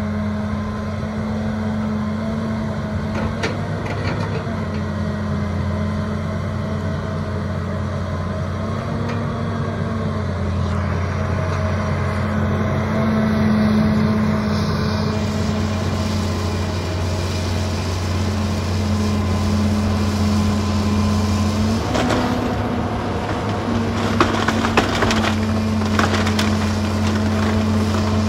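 John Deere tracked excavator's diesel engine running steadily under hydraulic load. In the last several seconds, old barn timbers crack, crunch and splinter as the bucket pushes into the wall and roof.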